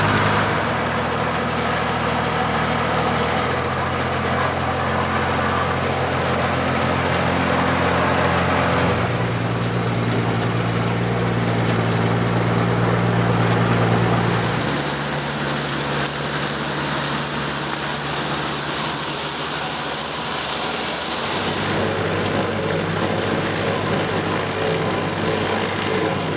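Tilmor 520 row-crop tractor's engine running steadily while working the field; its pitch and loudness shift to a new steady level every few seconds.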